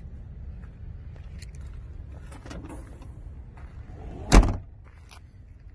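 Low rumble of handling and wind on the microphone with a few light clicks, then one loud thump about four seconds in as the Yugo 55A's hatchback tailgate is shut.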